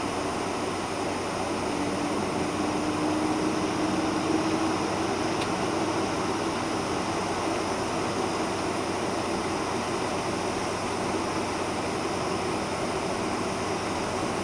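Steady cabin noise inside a Boeing 747-400 as it taxis, with the engines at low taxi thrust under the hiss of the cabin air conditioning. For a few seconds near the start a faint hum rises slightly in pitch.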